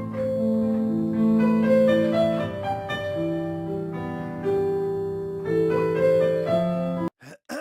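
Piano music playing chords and a slow melody, with several notes held at once. It cuts off abruptly about seven seconds in and is followed by a brief sound that falls in pitch.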